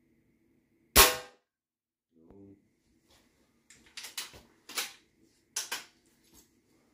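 A single air rifle shot firing a .22 pellet about a second in: one sharp crack with a short ring-off. It is followed a couple of seconds later by several quieter clicks and clunks.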